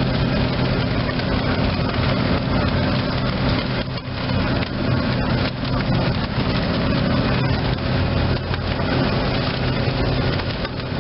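A passenger ferry's engines droning steadily at cruising speed, with wind crackling on the microphone and the rush of the wake.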